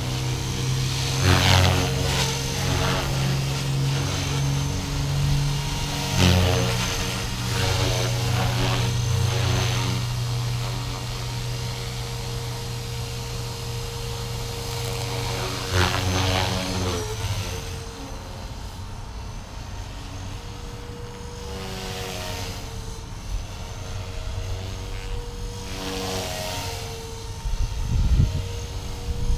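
Blade 330S electric RC helicopter flying: steady whine of its motor and main rotor, the pitch bending up and down as it manoeuvres, with several brief louder swells. The sound grows fainter from about two-thirds of the way in, and there is a short low thump near the end.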